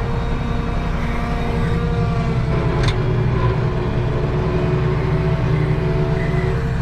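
Case IH tractor engine running steadily under load while pulling a planter, its note sagging briefly near the middle, with a single short click about three seconds in.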